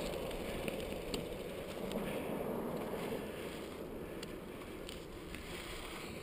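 Wind rushing over a helmet-camera microphone, with the hum of bicycle tyres on pavement, fading gradually as the bike slows. A few faint clicks.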